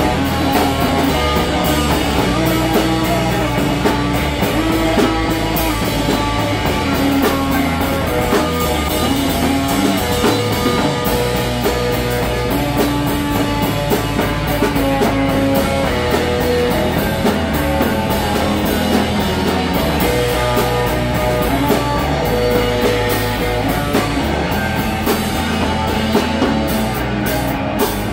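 Live rock band playing: amplified electric guitars, bass guitar and drum kit.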